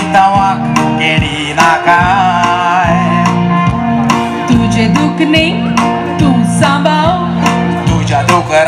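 Konkani song performed live through a PA: a woman sings with vibrato over band accompaniment with a steady beat.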